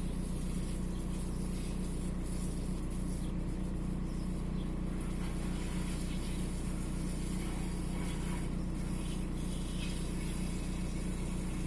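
Volkswagen 1.9 TDI AXR four-cylinder turbodiesel idling steadily. The engine logs an intermittent cylinder 4 misfire and is just beginning to shake slightly at idle.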